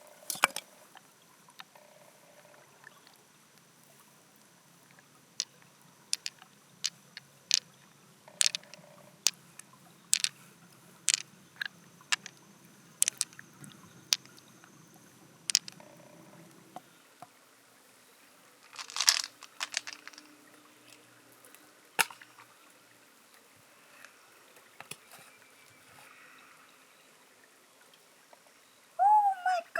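Scattered sharp clicks and light taps, a second or so apart through the first half, with a short cluster of them about two-thirds of the way in.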